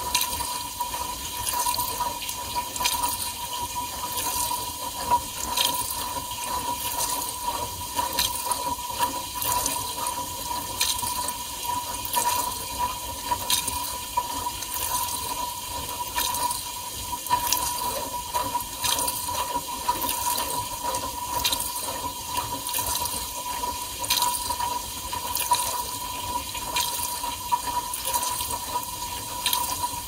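Inside a Whirlpool dishwasher during the wash: water from the spray arms splashing over the racks and the camera, surging a little more than once a second, over a steady whine.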